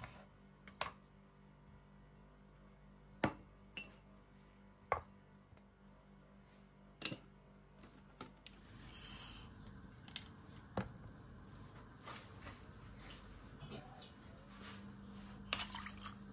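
Kitchen handling sounds: a knife knocking on a wooden cutting board and ceramic ramekins clinking as fruit pieces are set in them, sharp clicks a second or two apart. Near the end comes a quick cluster of clicks as something is poured into a stainless steel saucepan.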